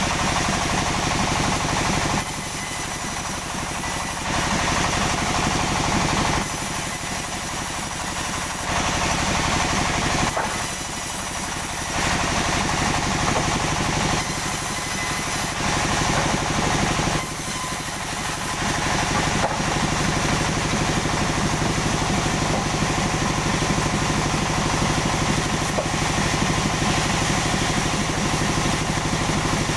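Sawmill machinery running steadily, a machine-driven saw at work with a motor drone underneath. About every four seconds through the first two-thirds the sound briefly changes character, then it settles into a steady run.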